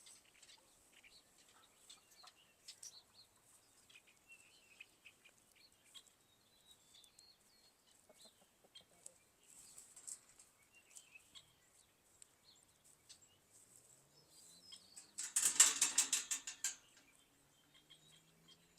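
Faint bird chirps in a quiet morning, then about fifteen seconds in a loud flurry of rapid wing flaps, about ten a second, lasting a second and a half, typical of a farm chicken flapping its wings.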